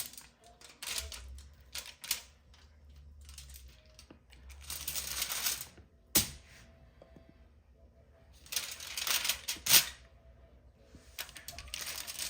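Hands rubbing yellow mustard into a raw deer backstrap: wet rubbing and slapping in several bursts about a second long, with a couple of sharp clicks between them.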